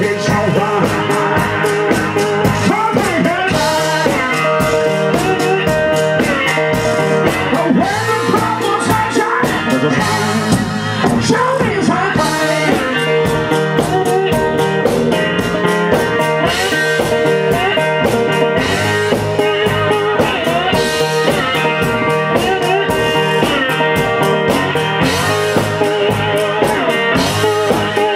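Live blues band playing: guitar over a steady beat.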